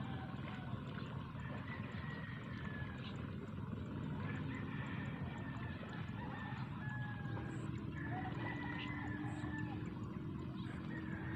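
Open-field ambience: a steady low rush with short, slightly falling bird calls repeating in the distance. A steady low hum comes in about seven seconds in.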